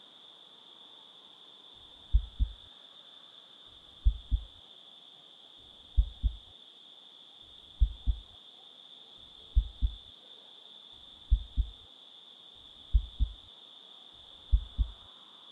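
Heartbeat sound effect: eight double low thumps (lub-dub), starting about two seconds in and coming slightly faster toward the end, over a steady high-pitched ringing tone.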